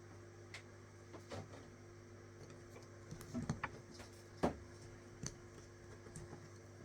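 Faint, scattered small clicks and ticks of a latch hook tool working yarn through mesh canvas. A cluster comes about three seconds in, and the loudest click about four and a half seconds in.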